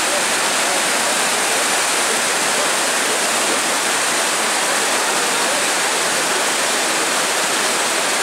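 River rapids rushing steadily: the continuous noise of whitewater churning through a slalom course.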